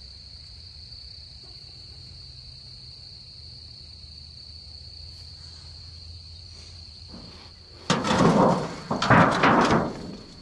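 A steady, high-pitched insect chorus drones throughout. About eight seconds in, loud irregular rustling and crunching starts: footsteps pushing through dense undergrowth.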